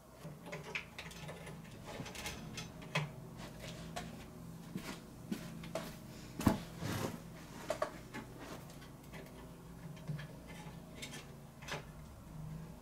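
Scattered light clicks, taps and rattles of cables and plastic parts being handled inside a PC case while the CPU power cable is fitted, with one sharper knock about six and a half seconds in.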